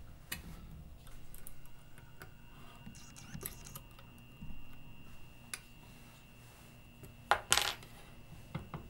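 Small metallic clicks and clinks of a hex key working the track roller adjustment screws on a Stepcraft 2 CNC gantry upright, taking the free play out of its roller bearings. Two sharper clacks come about three-quarters of the way through and are the loudest sounds.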